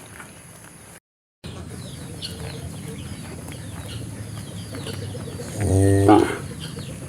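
One short, low moo from a cow about six seconds in, the loudest sound, over birds chirping. The sound cuts out completely for a moment about a second in.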